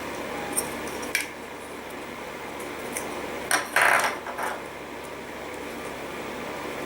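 A few light clicks and clatters of hard plastic toy pieces being handled, with a louder burst of clicking and scraping about three and a half seconds in, over a steady background hum.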